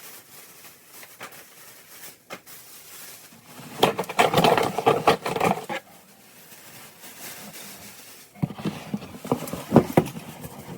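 Kitchen things being handled and packed: clattering knocks and rustling in two busy stretches, a few seconds in and again near the end.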